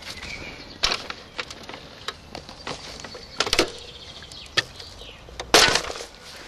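Scattered clicks and knocks from hands working inside a computer case and on its watercooling tubing, with one louder rustling burst about five and a half seconds in.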